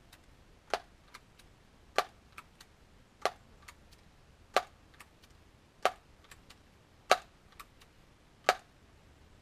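Daisy PowerLine 901 multi-pump air rifle being pumped: seven sharp clicks of the pump lever at an even pace of about one every 1.3 s, each followed by a fainter click.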